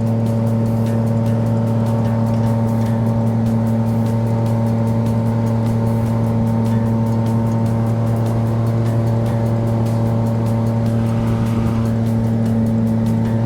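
Outboard jet-drive motor of a Solar 470 Super Jet inflatable jet boat running at a steady cruising speed, a constant low drone that holds one pitch throughout.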